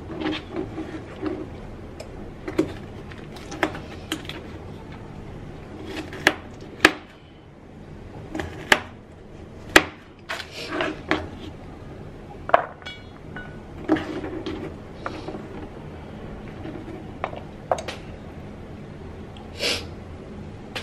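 Kitchen food preparation: a knife and utensils knocking and clicking on a cutting board at irregular intervals, with a few short scraping or rustling sounds, one near the end.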